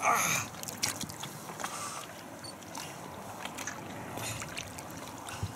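Water splashing and lapping around a wels catfish over two metres long, held with its tail in the shallows beside an inflatable boat. A brief louder splash right at the start, then quieter lapping with a few small knocks.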